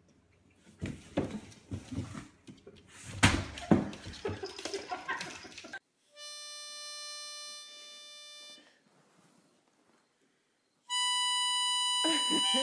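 Irregular rustling and knocks, then two long, steady held musical notes, the second higher and louder, starting about eleven seconds in.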